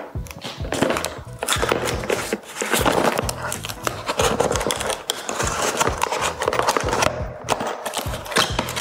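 A small cardboard box being handled, with its packing tape slit and pulled open: irregular scraping, crinkling and clicks over background music.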